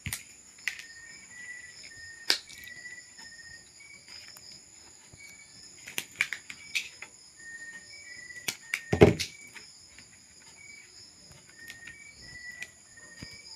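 Scattered sharp clicks and snips of pliers or wire cutters working electrical cord, stripping and twisting the wire ends, with a louder knock about nine seconds in. Underneath runs a steady chorus of crickets with short repeated chirps.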